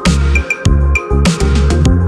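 Background electronic music with a heavy bass line and a steady beat of sharp drum hits.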